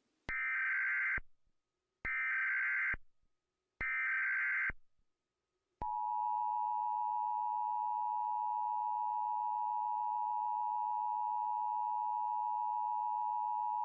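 Emergency Alert System alert opening: three short bursts of SAME digital header data, each under a second, then the steady two-tone EAS attention signal (853 and 960 Hz together) starting about six seconds in. This is the lead-in to an Emergency Action Notification.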